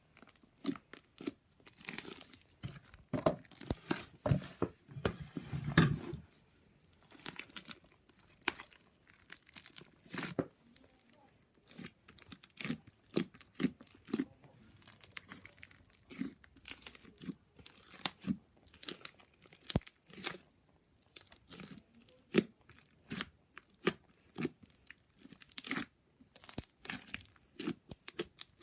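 Slime being squeezed, stretched and poked by hand, giving irregular crackling pops and clicks from trapped air, denser during the first few seconds.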